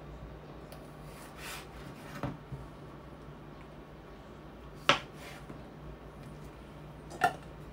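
Chef's knife cutting through a cucumber and knocking onto a cutting board: three sharp knocks a couple of seconds apart, the loudest about five seconds in, over a low steady hum.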